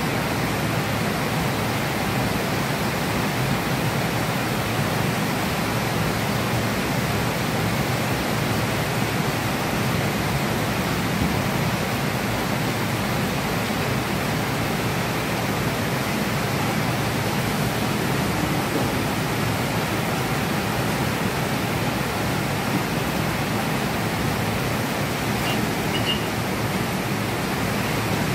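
Heavy rain pouring down steadily on trees and foliage, an even, unbroken hiss.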